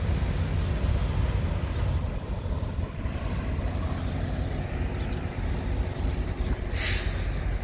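Steady low rumble of diesel semi-truck engines around a truck stop lot, with a short hiss near the end.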